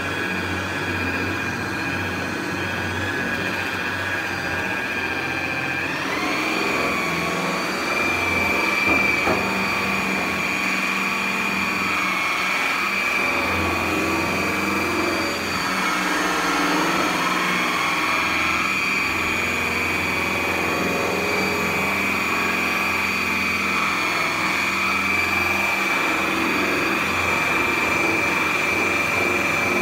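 Corded electric rotary buffer running steadily, its pad polishing bare aluminium aircraft skin to buff out light oxidation spots. The motor whines steadily and steps up in pitch about six seconds in, then wavers a little as it is pressed into the panel.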